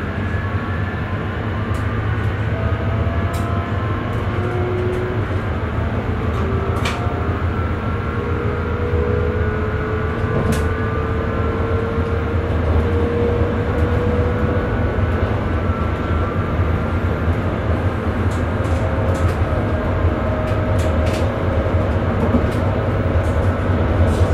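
Electric Sprinter commuter train running, heard from the driver's cab: a steady low rumble with several whines from the traction equipment, one rising slowly in the middle. There are a few sharp clicks along the way.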